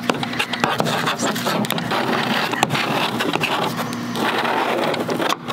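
Rustling, crinkling and scraping of a stiff two-ply paper hospital drape being folded and pressed flat by hand and with a plastic ruler, with many small irregular clicks and rubs.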